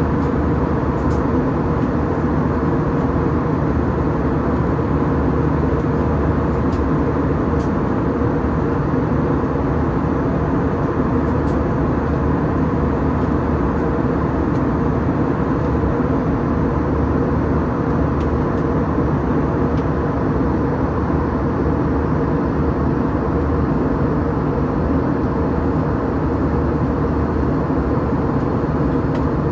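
Steady cabin drone of an Airbus A321 in flight: engine noise and airflow over the fuselage, an even rush with a low steady hum and no changes in level.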